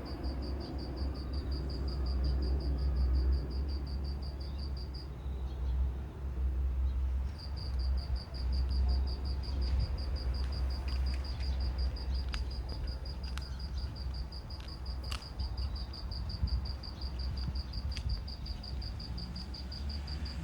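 A cricket chirping in a fast, even pulse train of a single high note, about seven or eight pulses a second; it breaks off for about two seconds near five seconds in, then resumes. A steady low rumble lies under it.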